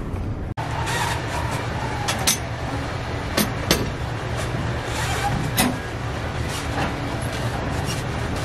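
Gym background noise: a steady low hum with scattered sharp clanks and knocks, as a seated ab crunch machine is being set up and gripped.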